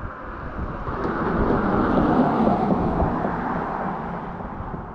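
A vehicle driving past: the steady rush of its tyres and engine swells, peaks about two seconds in, and fades away.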